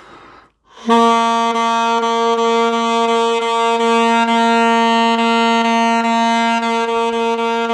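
Saxophone holding one long steady note, starting about a second in, recorded on a phone held at the player's head while he plays into the room and then against a wall.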